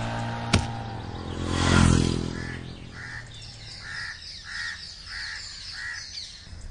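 A crow cawing repeatedly: a run of six or so short caws about every half second, after a brief swell of noise that rises and fades near the start.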